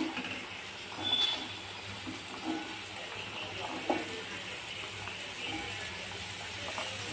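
Chopped pumpkin cubes sliding off a steel plate into a hot kadhai of oil and spices, sizzling steadily, with a few light knocks as pieces land in the pan.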